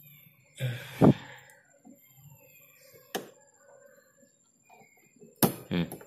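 Hands handling a twin-tub washing machine's plastic drain valve and its pull strap: a loud knock with a low thud about a second in, then two sharp plastic clicks, one midway and one near the end.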